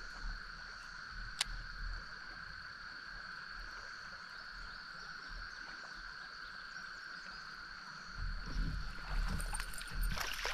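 Kayak on fast river water, with a steady high two-tone whine throughout. From about eight seconds in come louder splashing and knocking.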